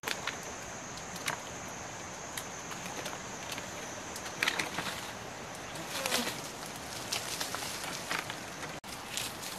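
Scattered rustles, scrapes and light knocks of dry coconut-palm fronds and fibre as a barefoot climber shifts in the crown and starts down the trunk. Behind them, a steady high insect whine that fades about halfway.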